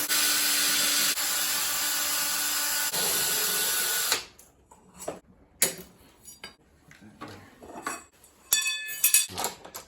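Power drill running steadily for about four seconds and then stopping suddenly, followed by a few small clicks and knocks and a short metallic rattle near the end.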